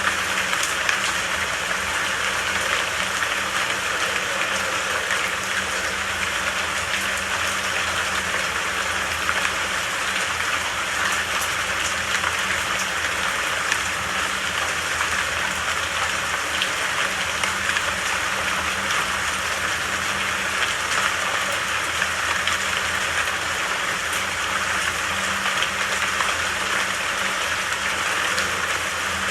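Steady rain falling in a forest, an even hiss of many drops with fine patter on top.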